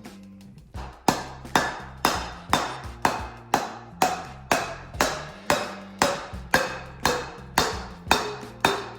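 Steady, even hammer taps, about two a second, with a short metallic ring. They are driving a new seal into a power steering rack housing to seat it.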